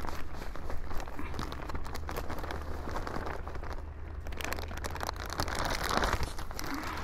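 Dry, fluffy gardening soil being scooped and poured into a container by hand, an irregular rustling with many small crackles.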